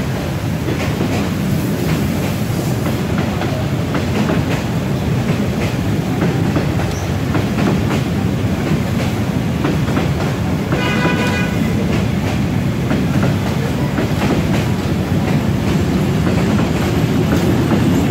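Passenger carriages of a train rolling slowly past close by: a steady low rumble with wheels clicking over rail joints. A brief high-pitched tone sounds about eleven seconds in, and near the end the engine of the D19E diesel-electric locomotive grows louder as it draws level.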